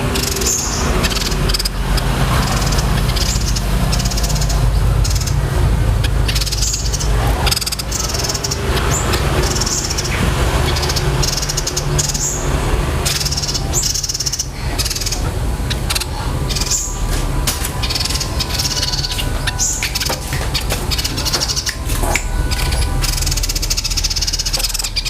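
Small songbird giving shrill, fast rolling chatter in repeated short bursts, sounding like fighting sparrows, over a steady low rumble.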